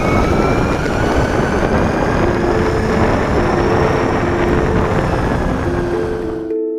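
A loud rushing, motor-like noise with faint high whining tones that slowly fall in pitch, cutting off abruptly near the end. Plucked background music comes in beneath it about two seconds in and is left alone once the noise stops.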